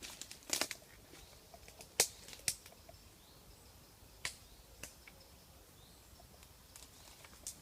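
Footsteps through woodland undergrowth: quiet, scattered sharp snaps and crackles of twigs and leaf litter, about six spread irregularly.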